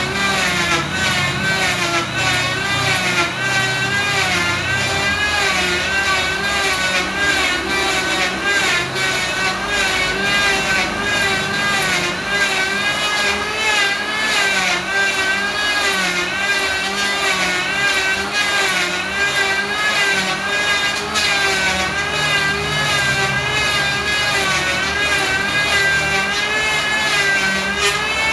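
Electric hand planer running as it is pushed across a solid trembesi (rain tree) hardwood slab, its motor whine wavering up and down in pitch about once a second.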